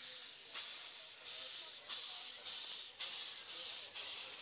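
Miniature steam locomotive chuffing: even puffs of hissing exhaust steam, just under two a second.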